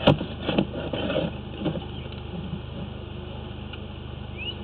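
A steady low engine hum, with a few sharp knocks and rattles in the first second and a half as the drain camera head is handled.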